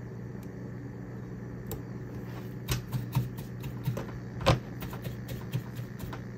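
Light clicks and taps of metal tweezers and a soldering iron being set down on a cutting mat, about a dozen in the second half, the loudest a sharp tap about four and a half seconds in, over a steady low hum.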